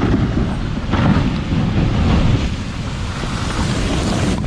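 Loud, continuous low rumbling noise with heavy wind buffeting on the microphone.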